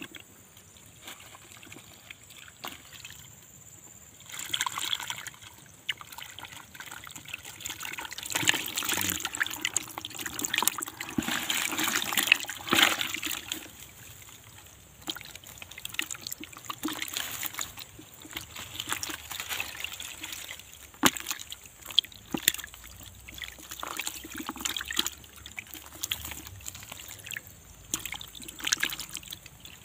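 Water sloshing, trickling and splashing in a tub, with scattered clicks and knocks; the splashing is heaviest from about 8 to 13 seconds in.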